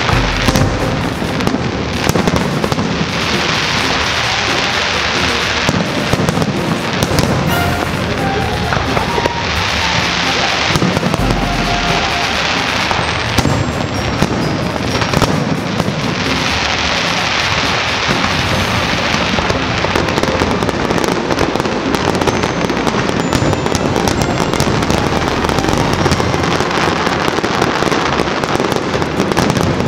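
Fireworks barrage: a dense, continuous run of aerial shell bangs, with several long stretches of crackling from crackle-effect shells.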